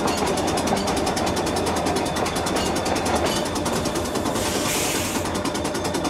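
Trolley car running along the track: a steady mechanical running sound with a fast, even rattle from its running gear and wheels on the rails. A short hiss comes about four and a half seconds in.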